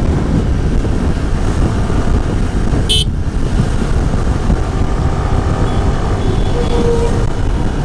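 Riding noise on a Yamaha R15 V3 motorcycle under way: a steady heavy rumble of wind and engine on the mic. A short, high horn toot sounds about three seconds in.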